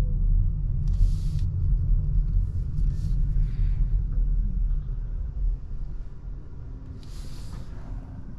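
Low road and tyre rumble inside the cabin of a 2023 Volvo XC40 Recharge electric SUV, with no engine note, fading as the car slows to a stop. Two brief hisses come about a second in and near the end.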